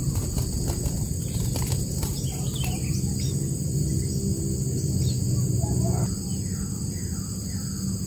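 Nestling birds calling from the nest in short, falling chirps, with a run of about five in a row near the end. In the first couple of seconds there is a light rustle of wing flaps and twigs as one fledgling flaps on the nest rim. A steady high insect drone and a low hum lie underneath.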